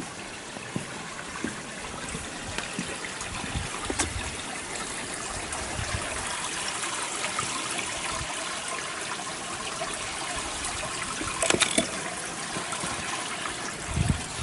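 Strong wind gusting, with a steady rushing hiss and irregular low buffeting on the microphone. A couple of sharp clicks, about four seconds in and again near the end.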